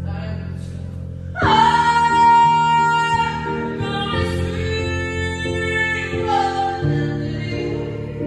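A song: a voice singing long held notes over sustained instrumental accompaniment, the voice coming in strongly about a second and a half in.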